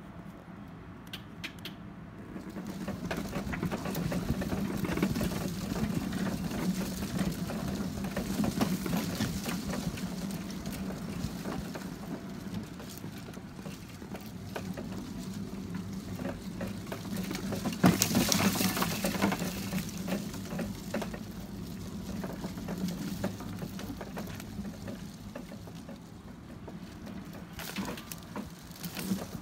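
Electric wheelchair under a Christmas-tree float driving over pavement: a steady motor hum with rolling noise from the wheels, getting louder about two seconds in, and one sharp knock about 18 seconds in.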